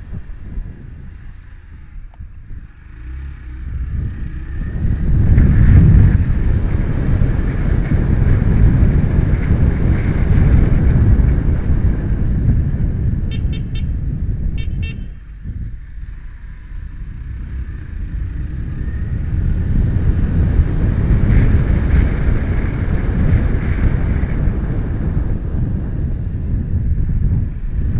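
Wind buffeting an action camera's built-in microphone on a moving motorcycle, with the engine running underneath. The noise drops away twice, near the start and just past halfway. Two short horn beeps come about halfway through.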